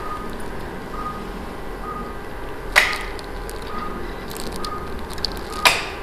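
Operating-room patient monitor giving its short pulse beep about once a second over a steady hum. Two sharp clicks, about three seconds apart, are the loudest sounds.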